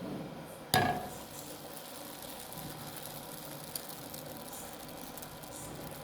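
A single sharp clink, like a utensil striking cookware, about a second in, ringing briefly. After it comes a faint, steady background with one small tick.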